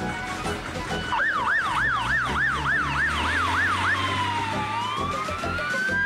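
Fire engine siren, first wailing fast up and down about three times a second, then switching to a slow dip and long rising wail near the end. A low engine hum runs under the first part.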